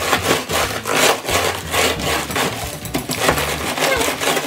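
Wooden rolling pin rolled back and forth over Oreo cookies in a plastic bag on a table, crushing them: repeated rubbing, crunching strokes about two to three a second.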